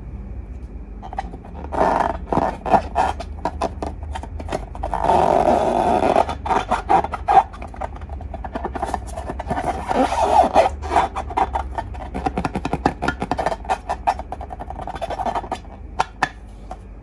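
Slime being squished and worked, making a run of sticky, wet popping clicks, with two longer squelching pushes about five and ten seconds in.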